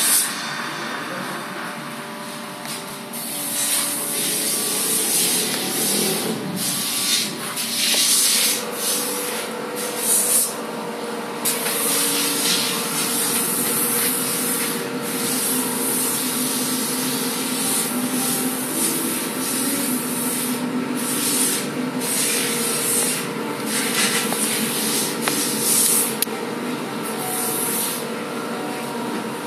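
Irregular rubbing and scraping of leather as a shoe upper is pressed and worked by hand over a shoe last, coming in repeated short scuffs, over a steady low hum.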